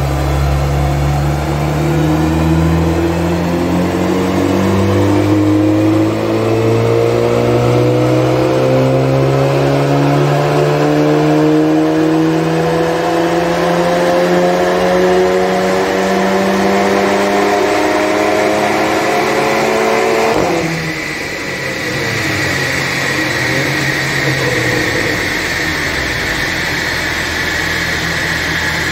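VW Golf 7 GTI's turbocharged four-cylinder engine at full throttle on a chassis dyno, its revs climbing steadily in one long pull with no gearshift. About 20 seconds in the throttle is lifted and the engine note drops away, leaving a high whine as the wheels and dyno rollers spin down.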